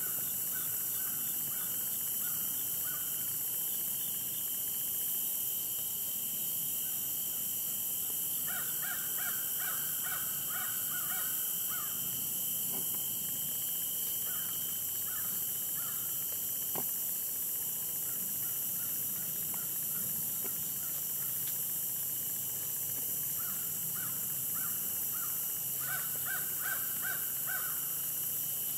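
Crows cawing in four runs of quick repeated calls, spread across the stretch, over a steady high drone of insects.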